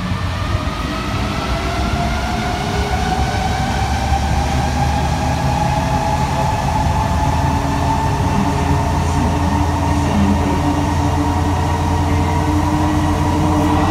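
Interior of an Alstom NS-16 rubber-tyred metro train under way, with a steady low running rumble. Over it, the traction motors' whine rises slowly in pitch as the train gathers speed.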